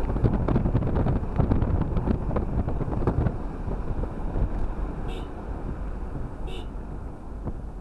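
Cabin noise of a Toyota being driven: a steady low rumble of engine and tyres, heard from inside the vehicle. A quick run of small knocks and rattles fills the first three seconds, then it settles.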